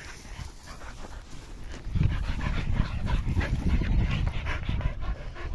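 Dogs panting and scuffling as they jump about up close, excited in play. A loud low rumble joins in about two seconds in.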